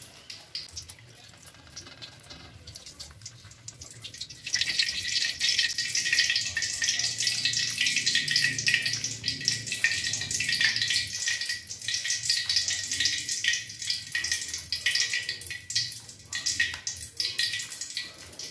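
Hot cooking oil in a wok sizzling and crackling around fried tofu martabak as they are lifted out and drained in a wire strainer; faint at first, then suddenly much louder about four seconds in.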